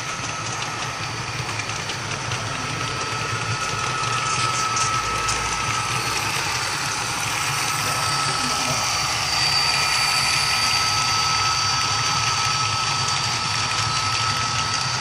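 Model freight train rolling past close by on a layout's track: a steady mechanical running noise of the locomotives' motors and the wheels on the rails, with a thin steady whine. It grows louder as the locomotives and cars come near.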